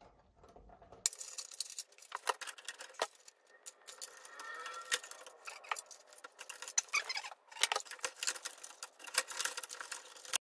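Plastic boiler control-panel housing being handled and fitted into the boiler casing: a run of irregular sharp clicks and knocks starting about a second in.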